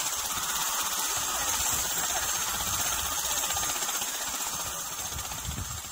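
Turbine helicopter running on the ground with its rotor turning: a steady hissing turbine noise with a faint high whine, easing off near the end.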